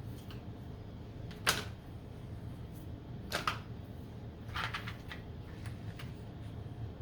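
Parcels being opened by hand: a sharp crackle of packaging about a second and a half in, then two more bursts of short rustling crackles a second or so apart, and a few faint ticks, over a steady low hum.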